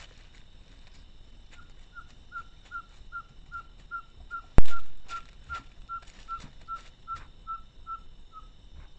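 An animal calling with a long series of short whistled notes, evenly spaced at about two and a half a second, each dipping slightly in pitch, starting about one and a half seconds in and stopping just before the end. A single sharp click about halfway through is the loudest sound.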